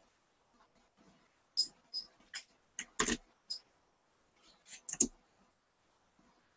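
A string of short, sharp clicks and taps at irregular intervals, the loudest about three and five seconds in.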